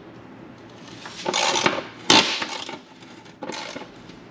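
Metal clinks and scraping of a hand tool working the Torx bolts on a car's underbody exhaust brace, in three short bursts with the sharpest click about two seconds in.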